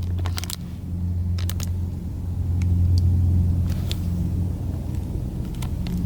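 A steady low rumble that swells in the middle, with a few sharp clicks and crinkles of a plastic bait package being handled.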